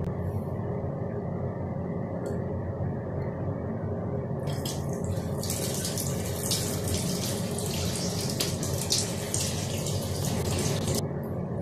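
Water running from a tap into a washbasin, a steady splashing hiss. It turns louder and brighter from about four and a half seconds in, then drops back about a second before the end.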